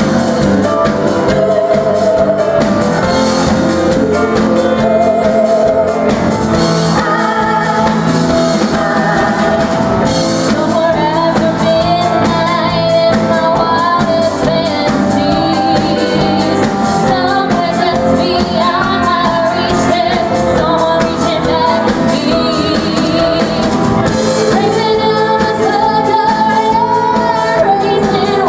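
Live pop-rock cover band playing an upbeat song, with singing over drums and guitar.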